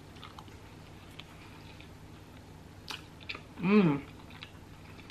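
A person chewing a mouthful of breakfast bagel sandwich with soft wet mouth clicks and a sharp smack a little before three seconds. Just before four seconds comes a short hummed "mm" that rises and falls in pitch, the loudest sound.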